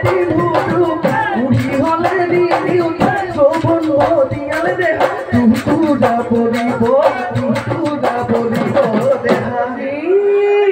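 Live Bihu music: several dhol drums beaten in a fast, dense rhythm under a singing voice. The drumming drops away near the end, leaving a held sung note.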